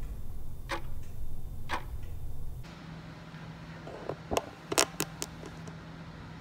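Red velvet cake batter being hand-whisked in a bowl: a low, steady stirring noise with a sharp tap against the bowl about once a second. It stops abruptly, leaving a faint steady hum and a quick run of sharp clicks.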